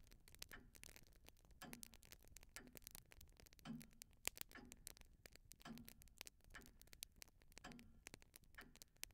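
Near silence, with faint soft ticks about once a second and scattered light clicks from a quiet ambient sound-effect track.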